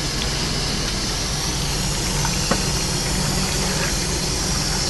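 Steady hiss of hot water running through a soda-fountain drain into a floor sink, over a low steady hum, with one light click about halfway through.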